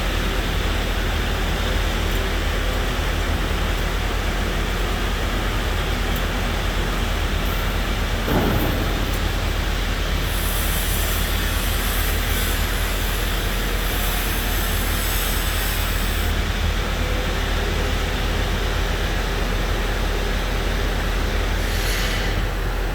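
Construction machinery engine running steadily, a continuous low mechanical drone with a single clunk about eight seconds in and a spell of high hiss a little later.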